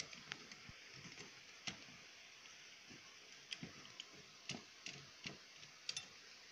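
Faint, irregular light clicks and taps, about a dozen, as a metal tool touches parts on a TV circuit board, over a low hiss.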